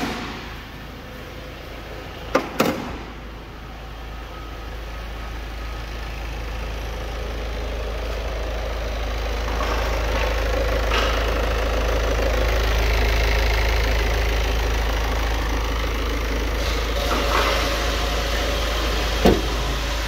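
Peugeot 508 1.6 diesel engine idling steadily with the light knock of a diesel, getting louder over the first ten seconds or so and then holding steady; the engine's condition is judged good. A couple of sharp clicks come near the start and one more near the end.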